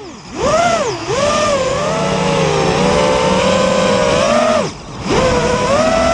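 FPV quadcopter's electric motors and propellers whining, the pitch swinging up and down with the throttle. The motors spin back up sharply about a third of a second in, as the quad recovers from a crash, then the throttle is cut for about half a second near five seconds before the whine rises again.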